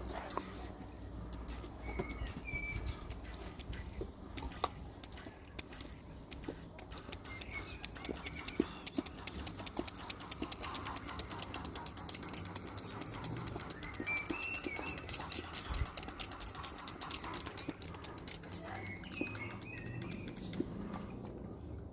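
A dog lapping water in a rapid run of wet clicks that thickens through the middle and thins out again. Birds chirp a few times in the background.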